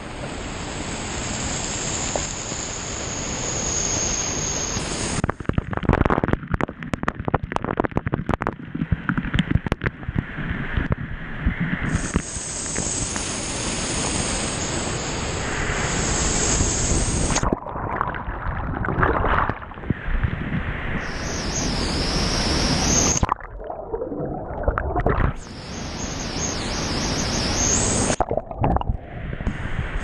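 Waterfall pouring into a rock pool at close range, a dense steady rush, with water splashing straight onto the camera. The rush turns muffled several times. Around 6 to 11 seconds in comes a rapid crackle of drops striking the camera.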